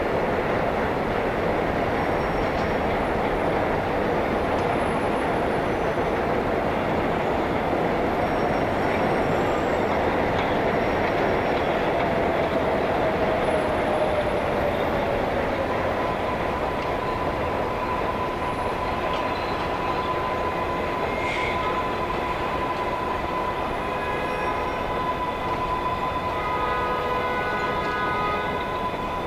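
Elevated New York City subway train running on the steel viaduct, its wheels squealing. About halfway through, a whine sliding down in pitch gives way to a steady high squeal, and more squealing tones join near the end, over a constant rumble of trains and road traffic below.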